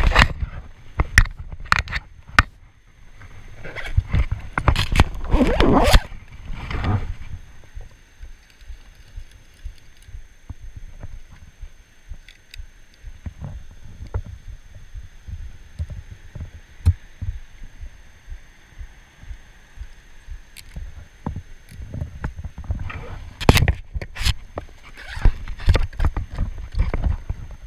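Hands handling fishing tackle close to the microphone: rustling, rubbing and irregular knocks, in loud bursts at the start and near the end with a quieter spell in the middle.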